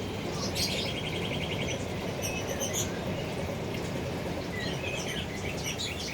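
Small birds chirping: a quick trill of rapidly repeated notes about a second in, then scattered high chirps, over a steady low background hum.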